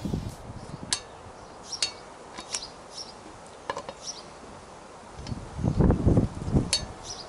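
Click-type torque wrench on a socket making sharp, separate metallic clicks as motorcycle brake disc bolts are tightened to 20 Nm. Louder dull thumps and a rumble come in the last two seconds.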